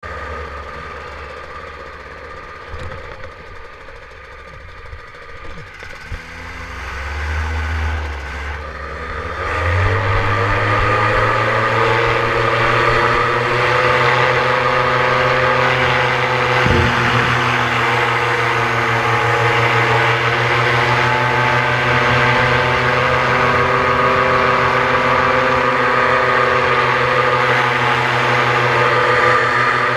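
Paramotor engine and propeller running at low power, then opened up to full throttle about ten seconds in and held at a loud, steady pitch through the takeoff run and climb-out.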